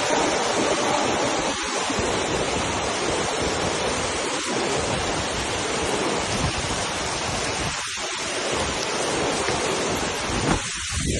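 Waterfall: a steady rush of falling water that dips briefly four times.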